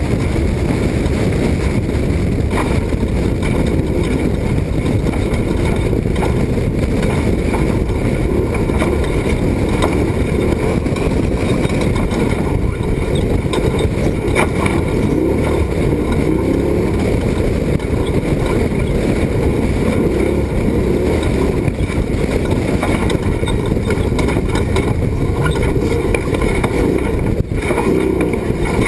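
Class 1450 off-road race truck driving hard over rough ground: a steady, loud rumble of engine, tyres and wind, with frequent rattles and knocks.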